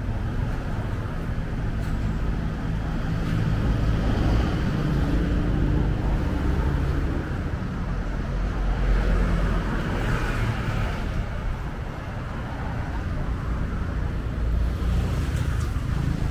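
Road traffic: engines running as vehicles pass, with the noise swelling about four seconds in and again around ten seconds.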